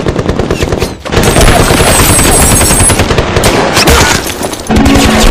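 M1919 Browning machine gun firing long automatic bursts, with a brief break about a second in. Music comes in near the end.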